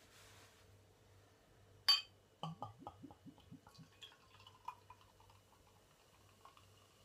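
Beer poured from a glass bottle into a stemmed glass: a sharp glass clink about two seconds in, then a quick run of glugs from the bottle neck, settling into the softer sound of beer filling the glass.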